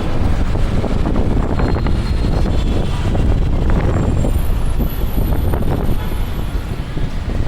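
Loud, steady road traffic noise with a deep rumble.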